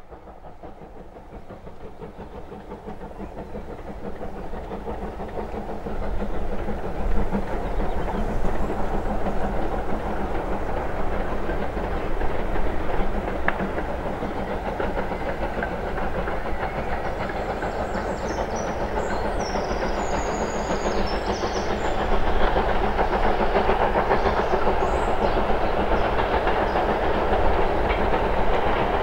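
Steam locomotive working a train at a distance, growing louder over the first six seconds as it approaches, then a steady rumble of exhaust and wheels on the rails.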